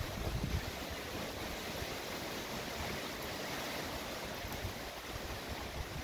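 Steady wind rushing through palm fronds, with low buffeting of wind on the microphone in about the first half second.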